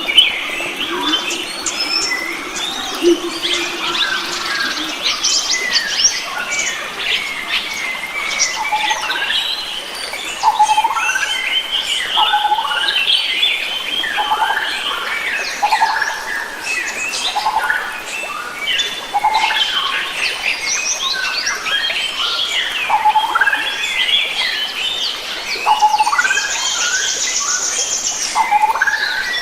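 A chorus of many wild forest birds calling and singing over one another: short chirps, whistles and rising and falling notes, densely overlapping. Near the end a rapid, high buzzing trill joins in for a couple of seconds.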